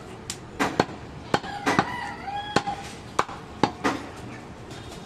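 A large butcher's knife chops goat meat on a wooden tree-stump block, about seven sharp, irregularly spaced chops. In the middle a rooster crows briefly.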